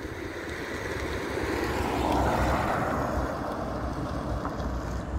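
A road vehicle passing by: its noise rises to a peak about two seconds in and then fades. Wind rumbles on the microphone.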